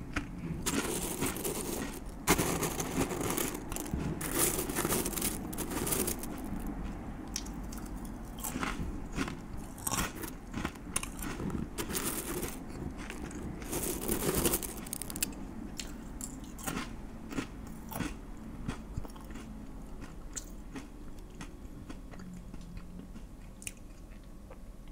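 Close-miked eating: crunchy biting and chewing with many sharp crackles, busiest over the first fifteen seconds or so and thinning out toward the end.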